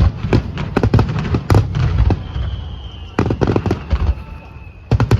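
Fireworks going off: sharp bangs and rapid crackling pops in quick clusters, with a faint thin high whistle that falls slightly, about two seconds in and again near the end.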